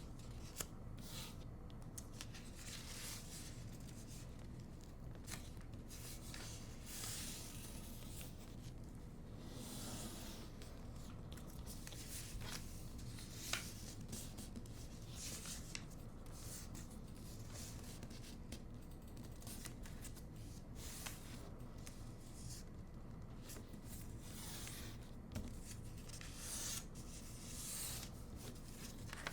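Hands folding and creasing a sheet of paper: irregular short rustles and crease swipes, with a sharp tap about halfway through, over a steady low hum.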